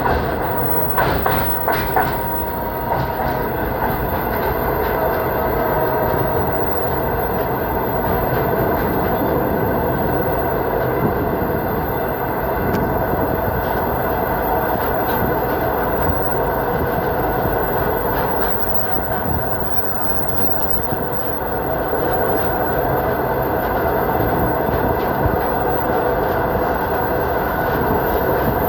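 Train running steadily along the rails, heard from aboard a carriage: a continuous rumble and rattle with a few sharp clicks near the start.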